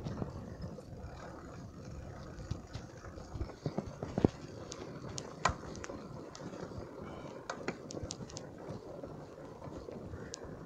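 Mountain bike riding over a wet, rutted dirt road: steady tyre rumble on the mud with scattered clicks and knocks from the bike rattling over bumps.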